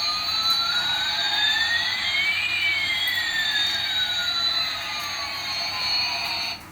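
Electronic jet-engine sound effect from a toy Airbus A380 airliner's speaker: a steady hiss with two whines, one rising in pitch while the other falls, crossing about halfway through.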